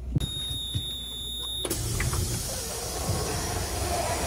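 Petřín funicular car's motorised doors closing: a steady high tone for about a second and a half, then the whir of the door mechanism, growing slowly louder.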